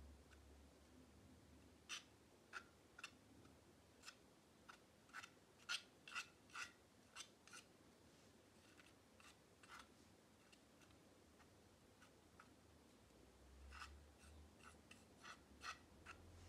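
Metal palette knife laying thick paint onto a stretched canvas: a series of faint short scrapes and taps, about two a second, with a pause of a couple of seconds past the middle.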